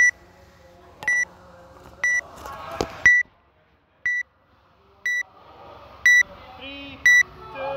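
Workout countdown timer beeping once a second, a short high-pitched beep each time, counting down the 10-second lead-in to the start of the workout.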